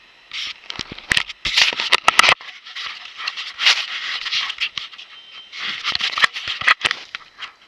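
Close rustling and scraping with many sharp clicks, starting suddenly about a third of a second in and going on irregularly, with a short lull just after the middle: handling noise on the camera's microphone.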